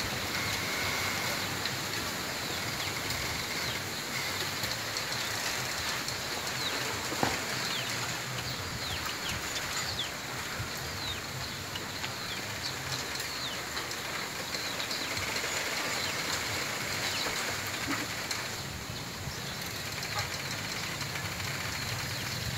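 Bamboo stems and leaves rustling and creaking in the wind: a steady rush with many short high squeaks and one sharp knock about seven seconds in.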